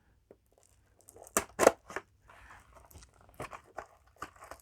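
Trading cards and foil booster-pack wrappers being handled: scattered short, crisp rustles and taps, the loudest two in quick succession about a second and a half in.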